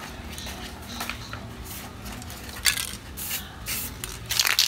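Aerosol can of acrylic clear coat spraying onto a mag wheel in short hissing bursts, with a longer, denser burst near the end.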